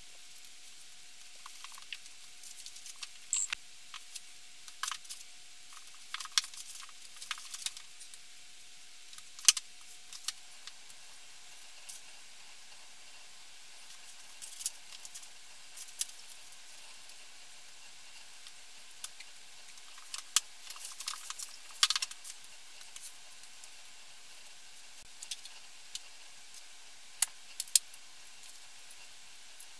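Books being pulled out, slid and set down on a bookshelf: scattered, irregular light knocks, taps and rustles, busiest around a third of the way in and again about two-thirds through.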